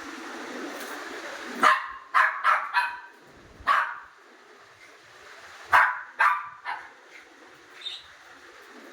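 Toy Pomeranian giving short, sharp, high yaps in two bursts of several barks each, the first under two seconds in and the second about four seconds later.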